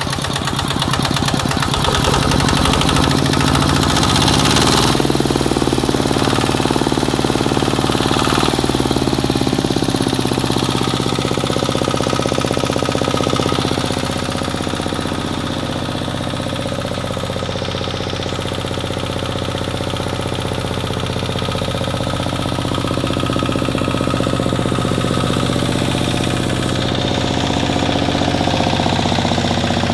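RT125 Plus single-cylinder horizontal diesel engine running on a test stand, its speed shifting during the first ten seconds or so and then holding steady.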